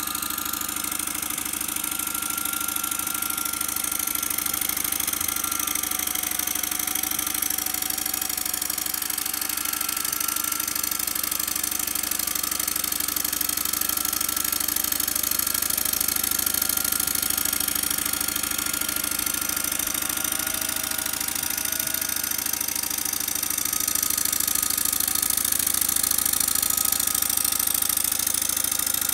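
PM Research No. 3 model steam engine running steadily, its flywheel belt-driving a small dynamo that lights a lamp bulb. A steady hiss with a faint wavering whine.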